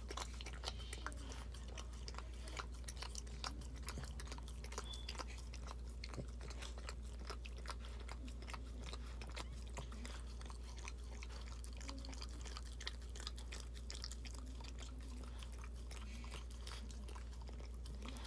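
A Boston Terrier mother licking and mouthing her newborn puppy to clean it after birth: wet smacking and irregular clicking mouth sounds, several a second, over a steady low hum.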